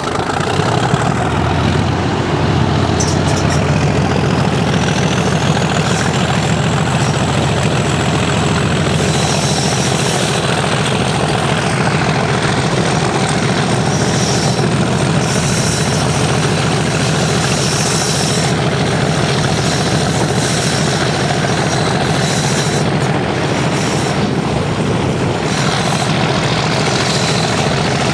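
Class 37 diesel locomotive's English Electric 12CSVT V12 engine working hard under load, heard from the carriages behind along with the train running on the track. It is a loud, steady drone with a high whistle that rises over the first few seconds and then holds.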